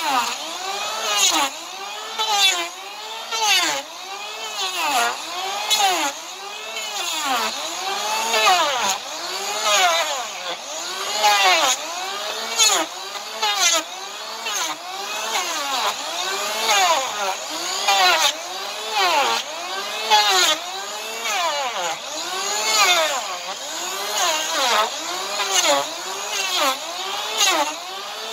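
Electric hand planer shaving down an overgrown draft horse hoof in repeated passes. Its whine rises and falls in pitch with each stroke, a little slower than one stroke a second.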